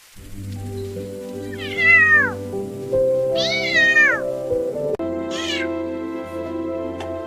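A cat meowing three times, each call falling in pitch, over steady background music.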